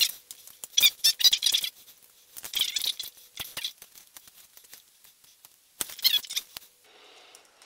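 Scissors cutting a thin plastic sheet, in several short runs of quick snips and crackles with pauses between: about a second in, again around three seconds, and near six seconds.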